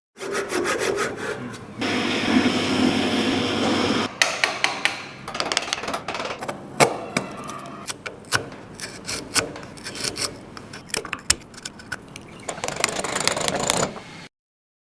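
Hand woodworking on wood: a quick run of even strokes, a stretch of steady sawing or rasping, then many sharp taps and knocks. Rubbing strokes return near the end before the sound cuts off abruptly.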